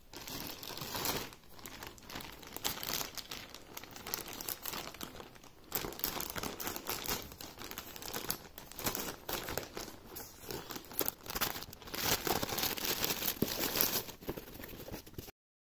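Plastic courier mailer bag crinkling and tearing as it is cut open with scissors and handled. The sound cuts off abruptly near the end.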